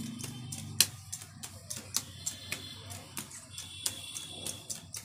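Playing cards being dealt by hand onto a hard tiled floor, each card landing with a sharp click, about three a second, the loudest about a second in.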